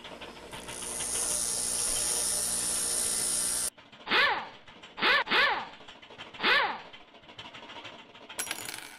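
Edited-in sound effects: a steady hiss that cuts off suddenly, then four short swooping whistle-like sounds, the middle two close together.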